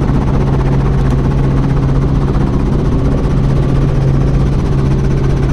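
Helicopter engine and main rotor heard inside the cabin, running steadily as a loud, unchanging low hum.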